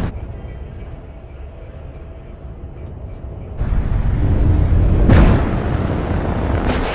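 Action-film sound effects: a low rumble, then about halfway a sudden loud rush of roaring noise that swells again a second and a half later, like an explosion or a jet passing close.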